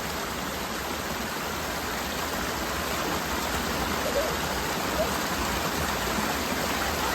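Steady, even rush of water falling at the Uracher Wasserfall.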